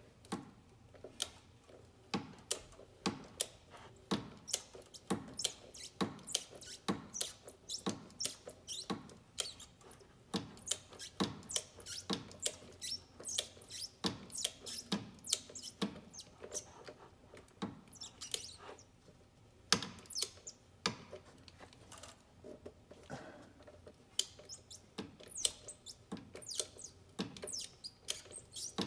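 Ratchet of a click-type torque wrench with a socket extension, worked in short strokes: a long series of sharp clicks, roughly one to two a second, as a fastener is run down toward its 25 newton-metre setting.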